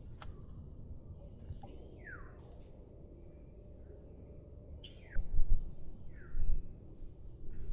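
Birds calling: a few short, falling whistled notes a second or more apart, over a steady high-pitched insect drone. Loud low thumps come about five to six and a half seconds in.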